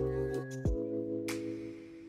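Background music: a few held notes and a short falling glide, dying away toward the end.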